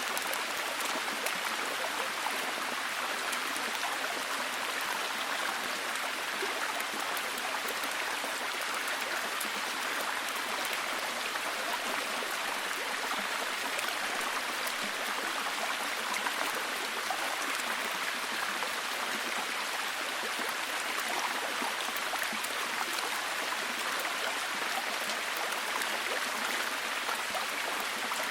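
Steady heavy rain, a dense even hiss of falling drops with fine patter on a surface.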